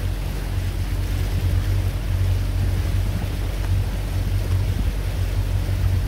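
Boat motor running with a steady low hum, mixed with wind on the microphone and the wash of water.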